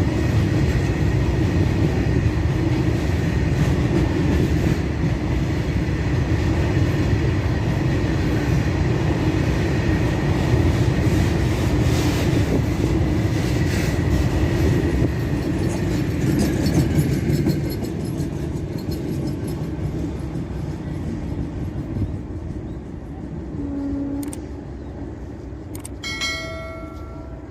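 Train passing on Indian Railways track: loud steady rumble of wheels on rail that falls away after about 17 seconds and fades. Near the end, two short horn notes, the second about a second long.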